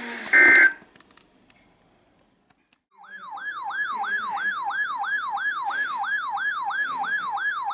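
A brief, very loud electronic data-burst tone just after the start, the tail of an EAS end-of-message burst from a weather-radio broadcast. Then, after about two seconds of near silence, an electronic siren starts up in a fast yelp, rising and falling about three times a second and holding steady.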